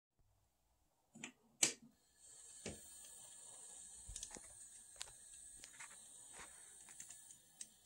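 Two sharp clicks, then an N scale model train running: a faint steady high whine from the locomotive's small motor sets in about two seconds in, with light irregular clicks of the wheels over the rail joints and turnouts.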